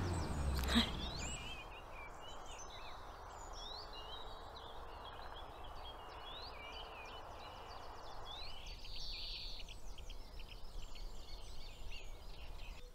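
Dawn chorus of many songbirds chirping and whistling, over a steady hum of distant road traffic that drops away about two-thirds of the way through. A single sharp knock comes about a second in.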